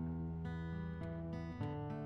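Instrumental music: an acoustic guitar strumming chords that change every half second or so.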